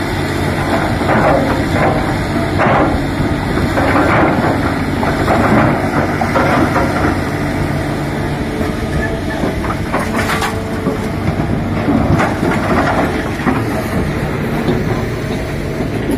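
Hitachi 330 excavator's diesel engine running steadily under load, with repeated knocks and clattering of rocks being scooped and dumped during loading.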